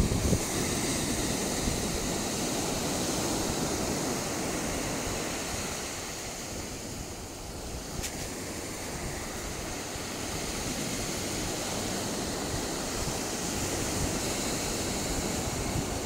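Ocean surf: a steady wash of small waves breaking, easing off around the middle and building again toward the end.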